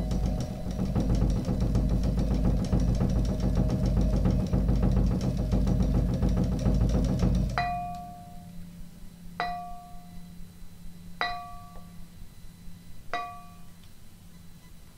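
Quartet of piano, acoustic guitar, cello and drums playing improvised music: a dense, rumbling texture with a rapid fluttering pulse that cuts off sharply about halfway. It is followed by four single bell-like struck notes at the same pitch, evenly spaced about two seconds apart, each ringing briefly over a faint low drone.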